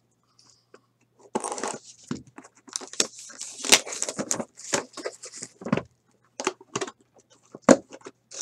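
Plastic shrink wrap being torn and crinkled off a sealed trading-card box: a few seconds of crackling rustles, then scattered clicks and one sharp snap near the end.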